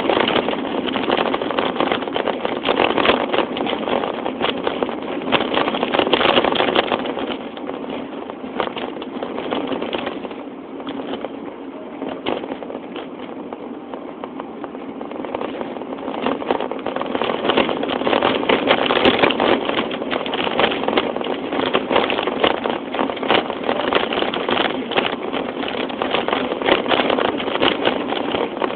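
Engine running with a steady rushing drone that drops off for several seconds in the middle, then comes back up.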